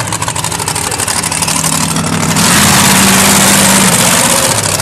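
Monster truck engine revving as it drives across dirt, its pitch stepping up. About halfway through it gets much louder, with a loud rush of noise as the truck comes close past.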